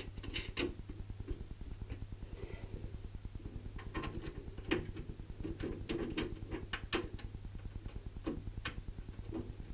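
Scattered light clicks and taps of a PC case's thumb screws being turned by hand back into the rear of the case to hold the refitted side panel, over a low steady hum.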